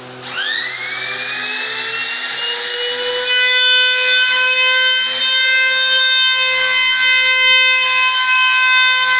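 Dongcheng DM5026 trimmer (compact router) switched on: its motor spins up with a rising whine about a third of a second in and settles into a steady high-pitched whine. From about three seconds in it grows louder as the bit trims the edge of a laminated board.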